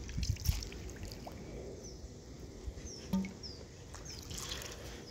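Water trickling and dripping around a small boat on a river, with a few low knocks near the start. A bird gives short, high, falling chirps several times.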